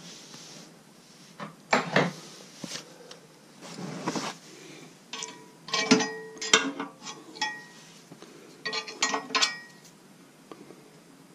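A steel hand wrench knocking and clinking against the metal blade bolts and housing inside a wood chipper. It starts with a few dull knocks, then comes two clusters of sharp, ringing metal clinks in the second half.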